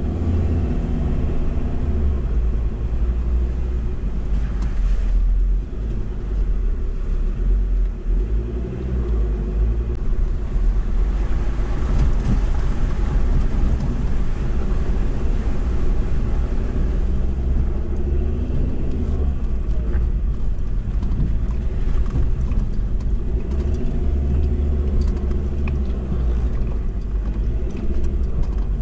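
Ford Ranger driving slowly over a rough dirt track, heard from inside the cab: a steady low engine and drivetrain rumble whose pitch rises and falls as the throttle changes, with tyre noise on the dirt and a few short knocks over bumps.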